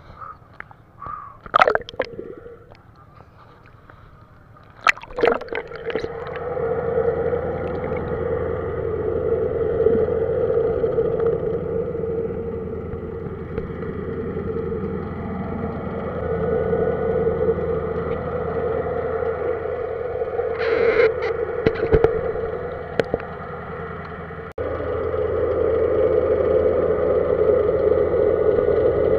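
Underwater sound from a submerged camera: a few splashes in the first five seconds as it goes under, then a steady muffled drone with gurgling, and a short hiss about 21 seconds in.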